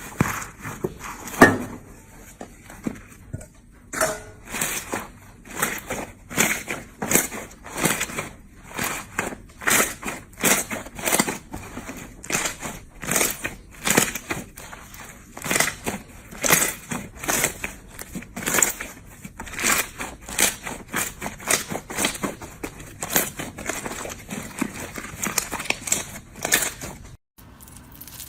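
Slime being pressed and squeezed by hand, giving a steady run of short crackly pops, about one or two a second.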